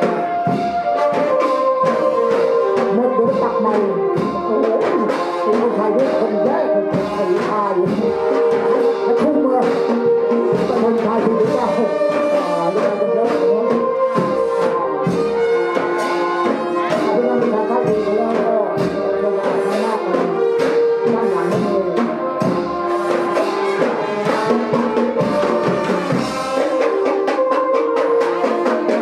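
Band music with brass horns playing held melody notes over a busy drum beat.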